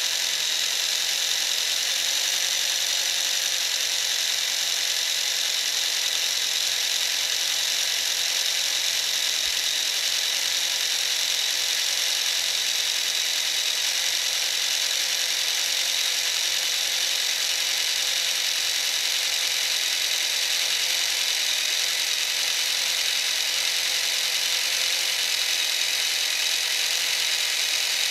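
Small electric motor running at a constant speed, driving a 3D-printed plastic gearbox and driveshaft: a steady high-pitched whir with several steady tones in it.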